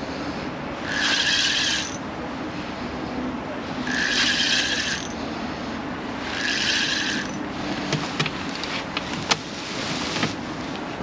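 Fixed-spool fishing reel being wound in short bursts, four whirrs of about a second each with a steady tone in them, a couple of seconds apart. Near the end a run of sharp clicks and knocks.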